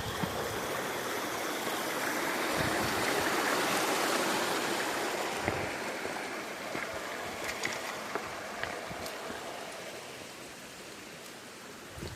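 Creek water rushing over rocks, growing louder to a peak a few seconds in and then slowly fading, with a few faint knocks through it.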